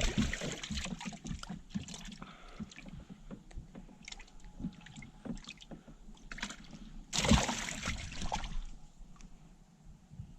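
Scattered knocks and clatter of gear being handled in a small fishing boat, with a louder rushing, splashy burst about seven seconds in.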